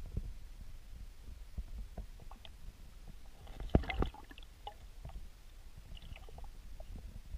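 Stream water heard from a camera submerged on a rocky streambed: a steady low rumble with scattered clicks and knocks, and a louder cluster of knocks about three and a half to four seconds in.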